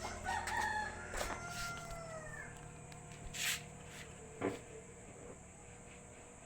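A rooster crowing once, a long call that slides down at its end, over a low steady hum that drops away about a second in. A short hiss comes about three and a half seconds in, and a sharp click a second later.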